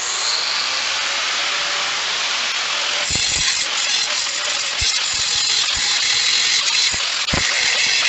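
A power tool running steadily with a loud hiss, switched on suddenly at the start, with irregular low knocks from about three seconds in.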